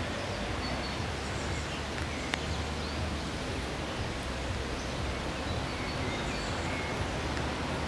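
Steady rain falling on tree leaves, with a few faint, short bird chirps.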